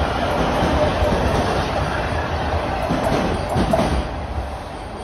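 TTC subway train running out of the station, its wheels clattering over the rail joints and the rumble slowly fading as the last cars pass. There is a short squeal about three and a half seconds in.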